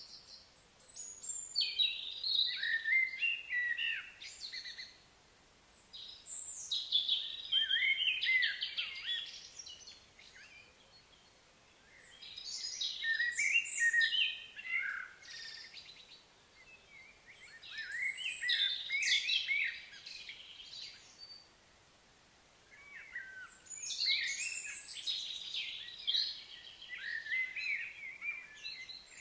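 A songbird singing long, varied phrases of high chirps and trills, each lasting about three seconds and repeating every five to six seconds, with quiet gaps of outdoor background in between.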